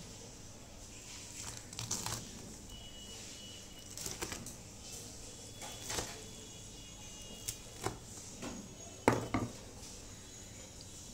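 Kitchen knife cutting through crispy fried chicken and knocking against a wooden cutting board: several separate crunches and taps, the loudest about nine seconds in.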